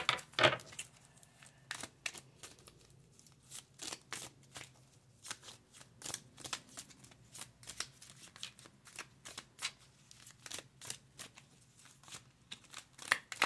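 A deck of round cards being shuffled by hand: a long run of quick, irregular card flicks and slaps, louder at the start and again near the end.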